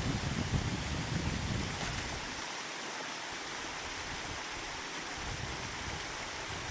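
Steady rushing hiss of wind and rain, with low uneven rumbles of wind on the microphone in the first second or two.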